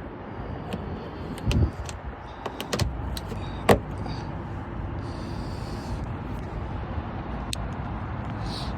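A few short plastic clicks and knocks as the trunk trim shield is pushed back into place and its pop clips are pressed in. The loudest is a sharp click about three and a half seconds in, heard over a steady background hum.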